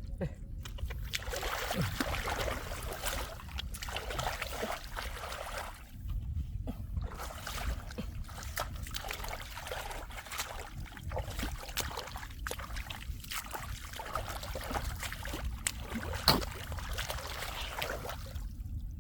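Water splashing and sloshing irregularly, with a sharp splash or knock about 16 seconds in.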